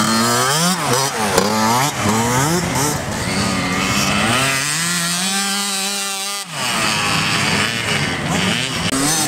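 Small two-stroke youth motocross bike engines revving hard, their pitch rising and falling quickly with each twist of the throttle and gear change, sometimes more than one engine at once. About two thirds of the way through, one long climbing rev cuts off abruptly.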